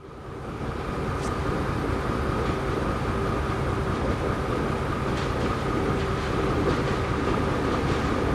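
Narrow-gauge diesel locomotive running as it slowly approaches, a steady drone with a low rumble and a few short high-pitched sounds. The sound fades in at the start.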